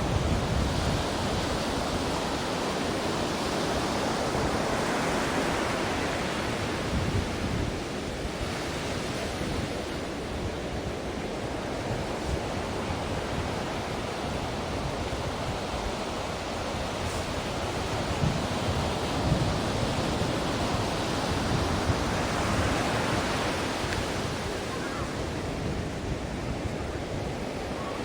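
Ocean waves breaking and washing on a shore in a steady rush of surf, swelling and easing slowly over several seconds.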